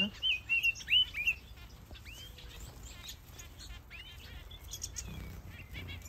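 Small finches chirping: a quick run of short, bending whistled chirps in the first second and a half, then a few single chirps spaced out, over a low steady background rumble.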